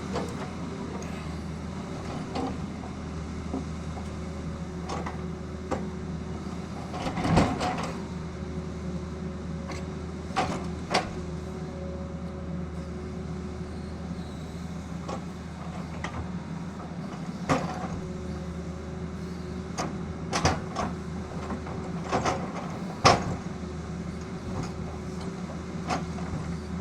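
Tata Hitachi excavator's engine running steadily, with sharp knocks every few seconds, the loudest about seven seconds in and again a little after twenty-three seconds.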